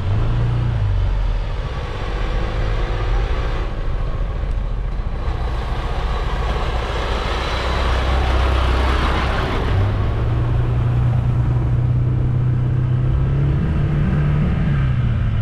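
A truck passing close by on a road: its noise swells to a peak about eight or nine seconds in, then fades. Under it, an engine keeps running at a steady low pitch.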